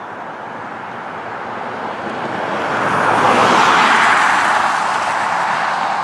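A car passing by on the road, its tyre and engine noise swelling to a peak a little past halfway and then easing off.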